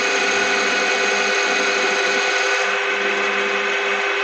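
Small lathe running steadily with a constant motor whine while the cutting tool takes a cut across the crown of an M20B27 piston, taking material off to lower the crown height.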